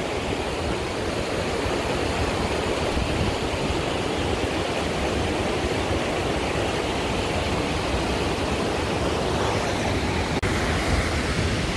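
Steady rushing of a whitewater mountain stream tumbling over rocks, with heavy rain falling.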